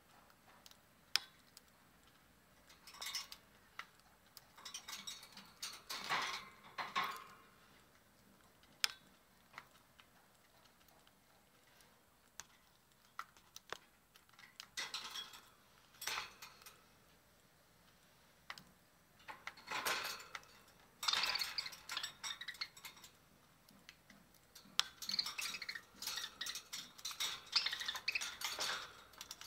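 Budgies pecking and cracking seed at a food dish: sharp clicks and clinks of beaks on the dish, coming in irregular bursts of rapid clicking with single ticks between them.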